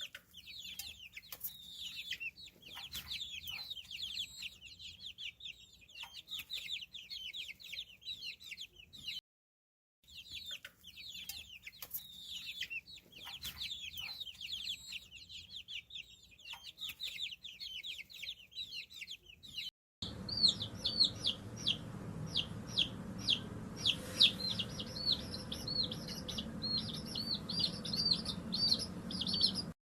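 Chickens calling: many rapid, high-pitched peeps crowd together, stop briefly about nine seconds in, and the same passage starts again. About twenty seconds in, another recording follows with slower, separate high peeps, roughly two a second, over a low hum.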